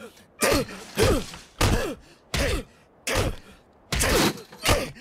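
A beating: about seven punch impacts, one every half second to a second, each with a short pained grunt that falls in pitch.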